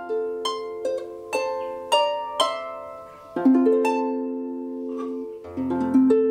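28-Bass lap harp by Marini Made Harps, just tuned, being played by hand: a run of plucked notes and chords, each ringing on after it is struck, with a low bass note joining about five seconds in.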